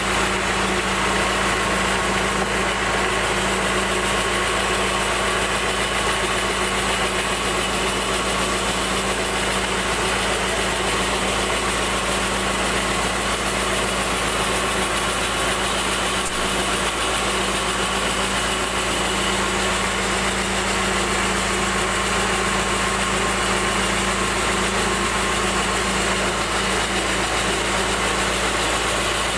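Band sawmill running steadily as a teak plank is fed through its blade, a constant machine hum with a steady low tone and no change in pitch or level.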